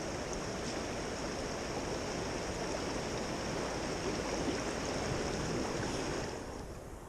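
Creek water rushing steadily over a rocky bed, dropping off noticeably near the end.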